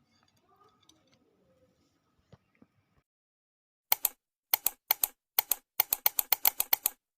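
A run of about fourteen short, sharp clicks or taps over three seconds, irregularly spaced and coming faster toward the end, after a few seconds of faint scattered noises.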